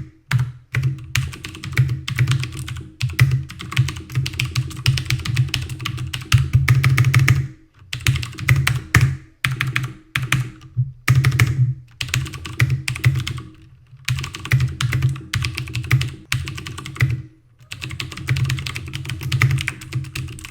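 Fast typing on a mechanical keyboard with clicky Cherry MX Blue switches, each keystroke a sharp click. The typing comes in runs of a few seconds with brief pauses between them, and it is a little bit loud.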